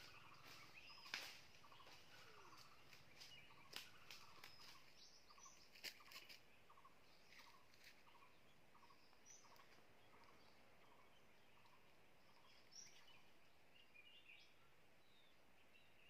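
Faint forest ambience. A bird repeats short notes about twice a second, fading out after about ten seconds, with a few high chirps later. Sharp clicks and crackles of footsteps in dry leaf litter come through during the first six seconds or so.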